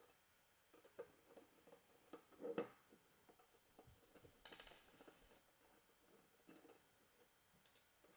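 Faint clicks and light metal taps of small screws being turned out of a rifle handguard's end cap with a hex key and set down, with one sharper knock about two and a half seconds in and a brief scrape around four and a half seconds.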